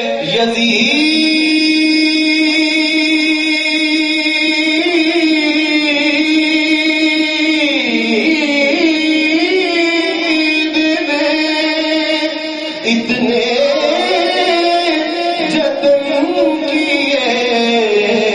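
A man singing a devotional melody into a microphone, drawing out long held notes with wavering, ornamented pitch. A short pause comes about two-thirds of the way through, then the singing carries on.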